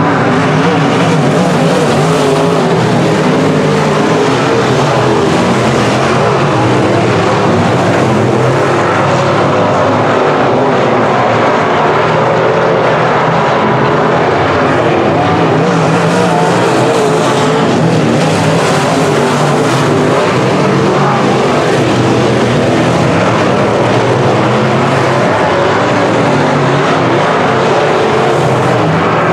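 A pack of semi-late model dirt-track race cars running hard around the oval, their V8 engines making a loud, continuous mix of engine noise.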